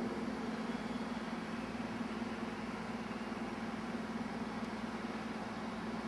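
Steady low hum with an even hiss, like a running machine.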